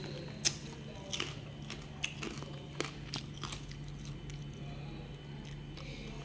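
Close-up eating sounds of steamed giant freshwater prawns: several sharp, crisp crunches and clicks in the first three seconds or so, then fewer, quieter chewing sounds.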